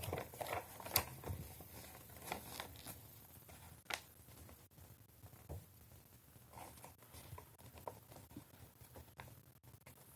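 Faint rustling and small clicks from hands handling the plastic packaging and parts of a building-block set, busiest in the first few seconds and then sparse.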